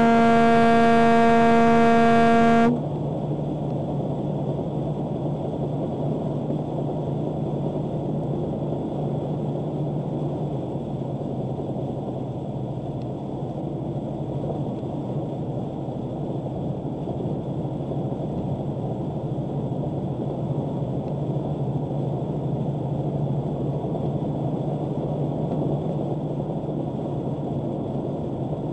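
A semi truck's air horn held in one long blast that cuts off about two and a half seconds in, then the steady drone of the truck's engine and tyres at highway speed heard from inside the cab.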